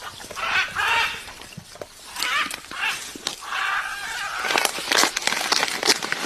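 Animal calls, several short squealing cries, with a dense run of sharp clicks or taps in the second half.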